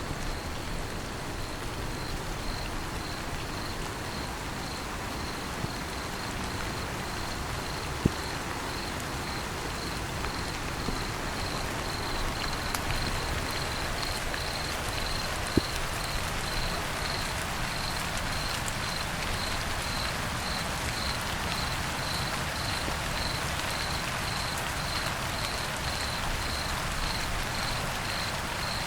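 Steady rain falling, with a cricket chirping over it in a high, even pulse, about two chirps a second. A couple of sharp taps stand out, one about a third of the way in and one about halfway through.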